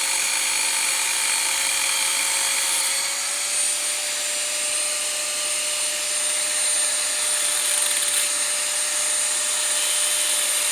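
Electric power tool running steadily with a high whine, its pitch stepping up slightly about three seconds in.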